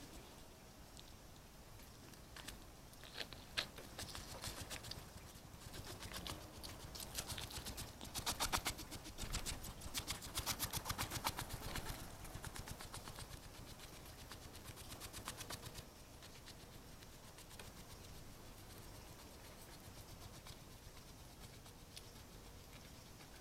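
An animal sniffing right up at the microphone: quick runs of short sniffs, densest and loudest through the middle, then softer.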